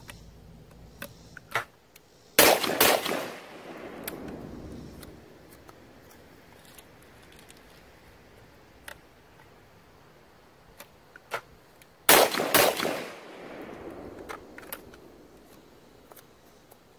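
Side-by-side double-barrel shotgun (Stoeger Coach Gun Supreme) fired in two pairs of shots, the shots in each pair about half a second apart, each pair followed by a long echo. Lighter clicks of the action being handled come before and after each pair.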